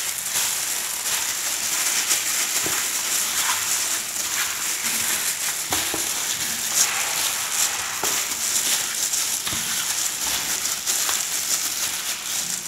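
Plastic-gloved hand kneading sliced pork with salt, chili powder and minced lemongrass in a stainless steel tray. It makes a continuous crinkling, squishing and crackling with many small clicks as the marinade is rubbed into the meat.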